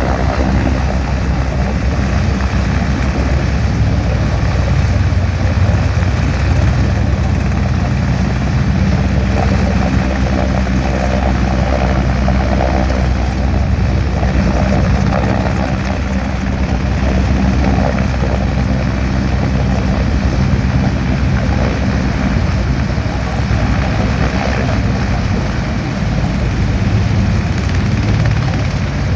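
EH-101 Merlin helicopter hovering low, its five-blade rotor and three turbines making a loud, steady drone with a deep rotor beat.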